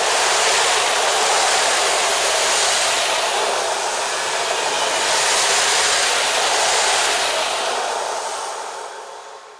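Intercity passenger coaches rolling past on the rails, a steady noise of wheels and running gear. It fades away as the last coach clears, from about three quarters of the way through.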